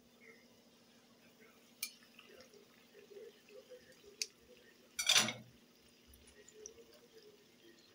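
Metal kitchen tongs clicking against a small frying pan as doughnuts are turned in hot frying oil, which bubbles faintly. There is a short, louder clatter about five seconds in.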